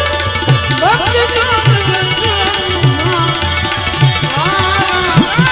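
Live Gujarati bhajan music: harmonium holding steady notes over a regular beat of hand drums, with a man's voice singing sliding, ornamented phrases into a microphone.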